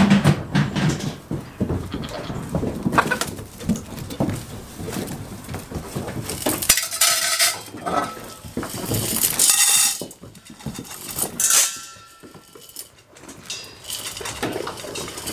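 Small metal cup clinking and rattling as it is handled, with a few bright ringing metallic clanks in the middle.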